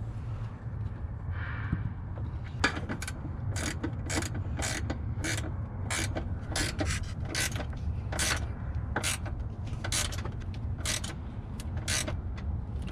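Hand ratchet wrench running a nut down onto a ground stud: short bursts of ratchet clicking, about two strokes a second, starting a couple of seconds in, over a low steady hum.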